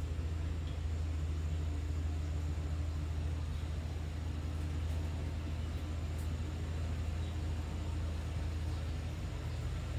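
A steady low mechanical hum with a light hiss, unchanging throughout.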